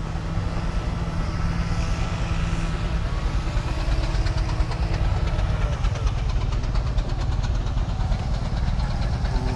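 A small engine idling steadily with a low, even drone. Through the middle there is a fast, light ticking over it.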